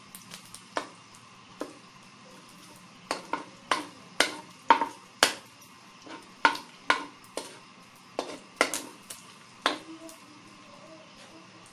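Metal spatula knocking and scraping against a metal wok while sautéing garlic and pork: a string of irregular sharp clinks that stop near the end, over a faint steady sizzle.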